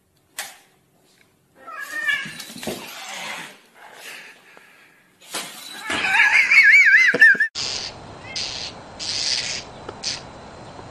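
A cat yowling at a puppy in a wavering, warbling pitch over a hissy noise, loudest from about six to seven and a half seconds in. After an abrupt cut at about seven and a half seconds, a run of short high chirps comes over a steady background hiss.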